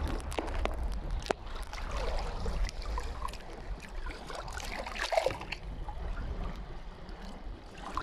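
Choppy lake water splashing and lapping close to the microphone, with many small splashy clicks, over a low rumble of wind on the microphone.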